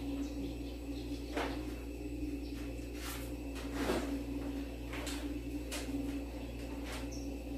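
A spoon scraping and tapping softly against a dish while white sauce is spread over a layer of lasagna pasta: a handful of light, irregular strokes over a steady low hum.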